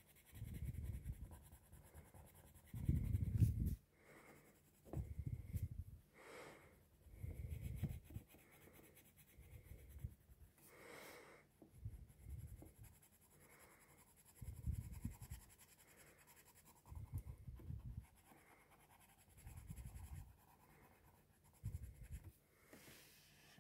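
Coloured pencil shading on paper: a run of about ten short, faint bursts of scratchy strokes, roughly two seconds apart, the second the loudest.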